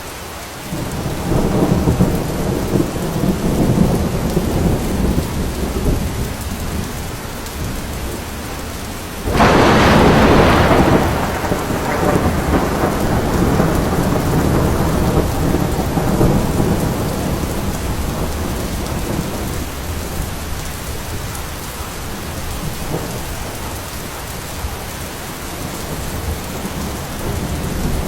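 Steady heavy rain with thunder: low rolling rumbles in the first few seconds, then a sharp thunderclap about nine seconds in that fades into a long rumble.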